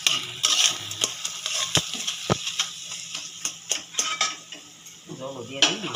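Metal spatula scraping and knocking around a metal kadai as onion-and-spice masala sizzles in oil, being stirred and fried down (kasha) until nearly done.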